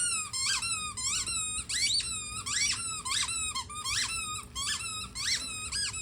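Squeaky dog toy squeezed over and over, as in a dog chewing it: about two sharp squeaks a second, each rising and falling in pitch.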